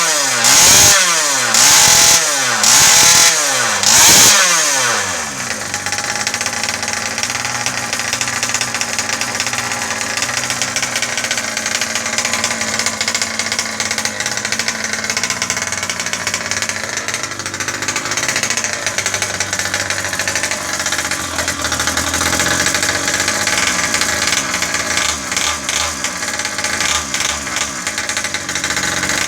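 Small two-stroke petrol engine of a 1/5-scale FG Marder RC car with twin exhaust, revved in five quick blips about a second apart, then settling into a steady idle.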